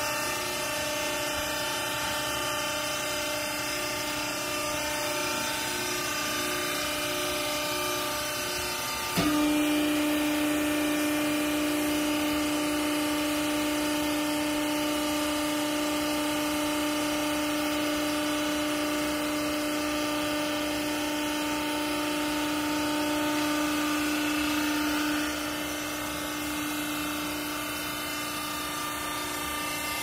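Electric hydraulic power pack of a vertical textile baler running with a steady hum. About nine seconds in, a louder, steadier tone sets in as the press ram is driven down to compress the clothing. It drops back a few seconds before the end.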